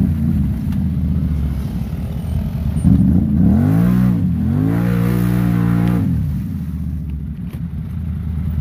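Mud ATV's engine revving hard while its tires spin and churn in deep mud: the machine is bottomed out and stuck. The revs swell and fall back twice in the middle, then ease off near the end.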